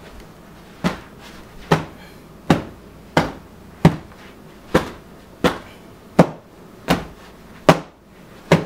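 A cloth swung hard and whacked repeatedly: eleven sharp slaps, evenly spaced at a little over one a second.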